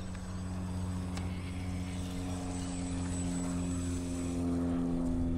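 A steady engine drone that slowly grows a little louder and rises slightly in pitch, with a faint thin high whine above it.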